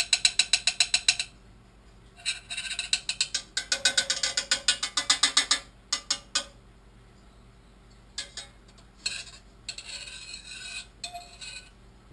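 Metal spoon stirring tomato paste into sauce in a stainless steel saucepan, clinking and scraping against the pan several times a second. It comes in a short run, then a longer run of about three seconds, then a few scattered scrapes.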